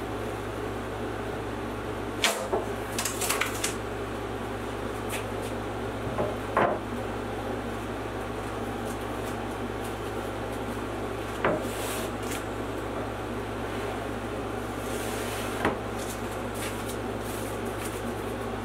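Wooden boards knocking as a sign blank held with double-sided tape is pried up off a CNC spoil board. There are a few sharp knocks bunched in the first seconds and two single knocks later, over a steady background hum.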